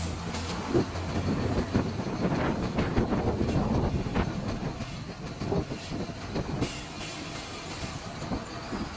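BharatBenz 2823 C tipper truck rolling slowly on paving, a dense run of irregular crackling clicks and creaks from its tyres and running gear, busiest in the first few seconds, with brief hisses at the start and about seven seconds in.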